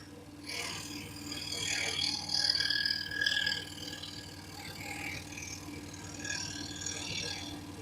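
Excalibur EX21 scroll saw running, its blade stroking rapidly up and down as it cuts through a piece of flooring, with the cutting hiss rising and falling as the piece is turned and fed.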